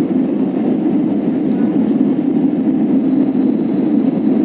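Airliner noise during landing: a steady, even rush strongest in the low-middle range, holding level without rising or falling.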